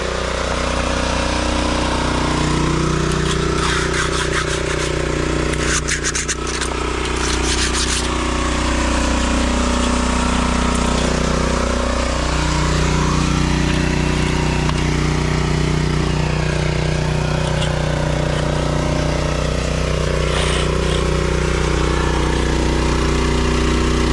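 Gas-engine power trowel running steadily while finishing a concrete slab, its engine note sagging about halfway through and then picking back up. A run of sharp clicks and knocks comes a few seconds in.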